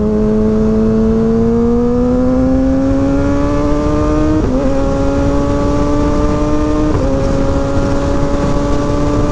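Kawasaki Ninja ZX-6R's inline-four engine pulling under steady acceleration, its pitch climbing slowly, with short dips about four and a half and seven seconds in as it is shifted up a gear.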